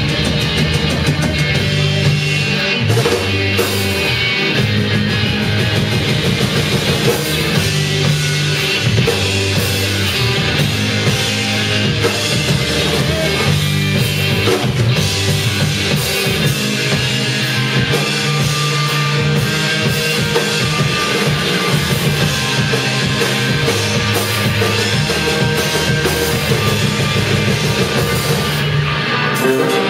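Rock band playing live, electric guitar and drum kit together, loud and steady throughout.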